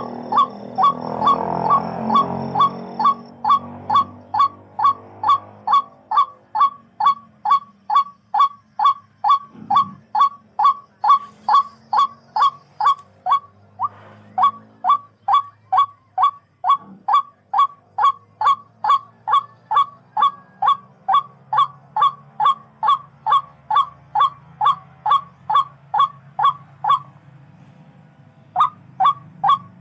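Tikling (a rail) calling: a short, hooked note repeated about twice a second in a long, even series that breaks off briefly near the end, then starts again.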